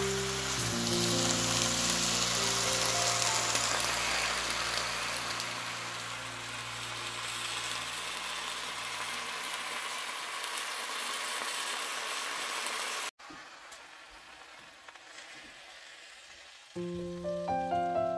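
Cabbage sizzling in a hot wok as it is stir-fried, a steady hiss. Background music fades out over the first few seconds; the sizzle cuts off suddenly about 13 seconds in, a fainter hiss follows, and piano music starts near the end.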